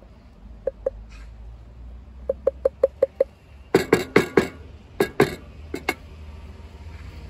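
A wooden spoon knocks against a glass jar of thick homemade tomato paste as the paste is scraped out: two taps, then a quick run of about six even knocks, then several louder, sharper knocks and clatters.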